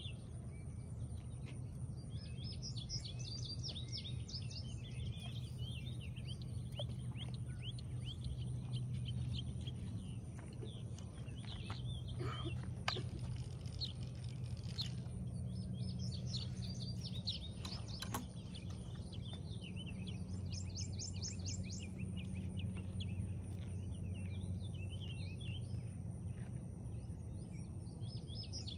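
Several songbirds chirping and trilling on and off, over a steady low hum and a thin, steady high whine. A sharp click about thirteen seconds in, and another faint one later.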